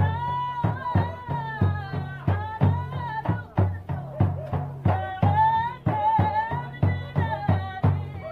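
Yemeni sharh dance music: drums beating a steady rhythm of about two to three strokes a second under a high, gliding melodic line.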